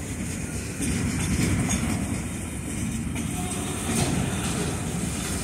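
Freight train of loaded container flat cars rolling slowly past, the wheels rumbling steadily on the rails, with a few knocks from the couplers as slack runs in while the train slows.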